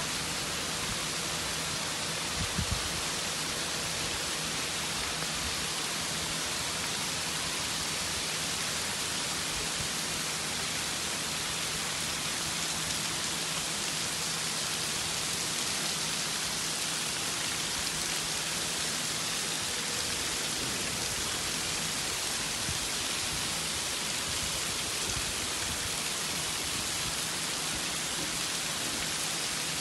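Heavy rain falling steadily on tiled roofs and streets, a constant even hiss.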